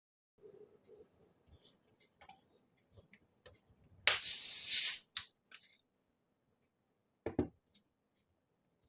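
Plastic cap twisted off a 2-litre Sprite bottle: a few small plastic clicks as the seal gives, then a loud hiss of escaping carbonation lasting about a second. A short thump follows near the end.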